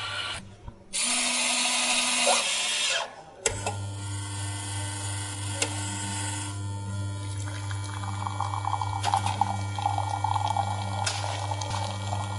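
Coffeemaker running: about a second in, a loud hiss lasts roughly two seconds and cuts off. Then the machine hums steadily with a faint regular pulse, and from about eight seconds in, coffee trickles and gurgles as it pours.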